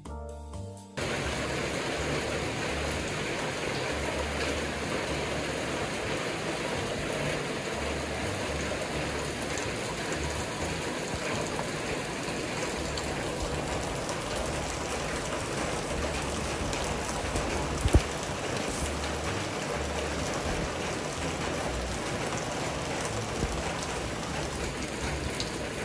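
Heavy rain falling steadily, a dense even hiss that starts about a second in. A single sharp knock stands out about two-thirds of the way through.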